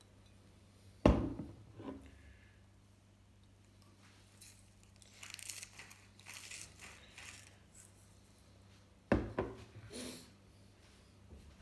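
Hand salt grinder cracking coarse salt crystals, a run of short crackly rasps lasting a few seconds in the middle. Two loud knocks of things set down on a table, about a second in and near the end.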